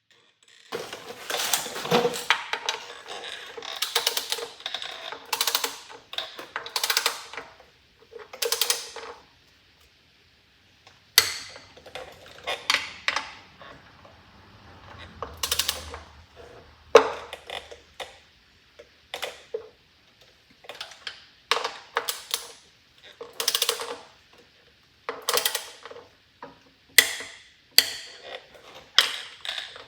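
Ratchet wrench clicking in repeated bursts as the timing-cover bolts are run down, with short pauses between.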